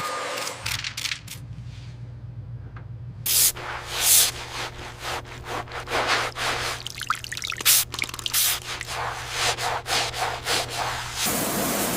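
Irregular scraping and hissing strokes over a steady low hum, giving way about a second before the end to a steady rushing noise.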